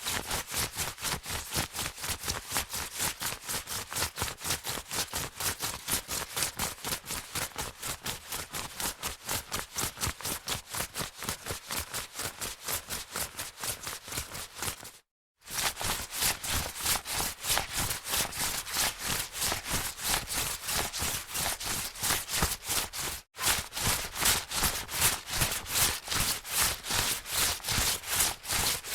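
Jacket fabric rubbing in a fast, regular back-and-forth rhythm of about three to four swishes a second. It runs in three takes, broken by brief silences about halfway and about three-quarters of the way through.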